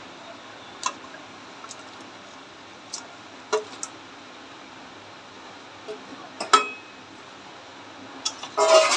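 Scattered metal clinks and knocks of a steel bowl and pieces of goat head meat against an aluminium kadai as the meat is tipped in, over a steady faint hiss. Near the end a steel spatula goes into the pan and knocks and scrapes against it several times in quick succession, the loudest part.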